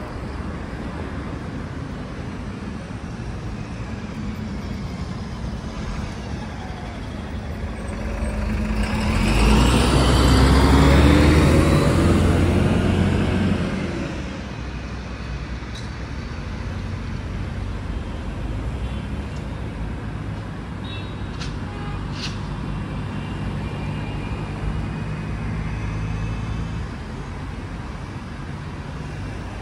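City street traffic. A motor vehicle passes close by about nine to fourteen seconds in, the loudest thing here, its pitch falling as it goes past. Afterwards a steady low engine drone continues under the traffic hum.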